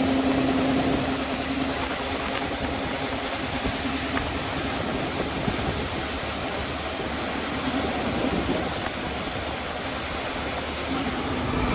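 Heavy farm machinery engine running steadily under a constant rushing noise. A droning engine note fades out about a second in and comes back near the end.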